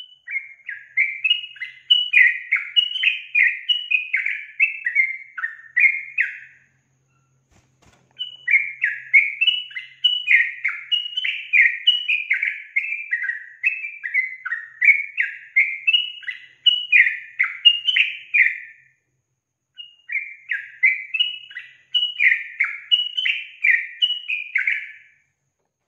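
Female yellow-vented bulbul (trucukan) singing a quick chattering, bubbling song of short falling notes, at about two or three a second. The song comes in three long runs, broken by short pauses about six and nineteen seconds in.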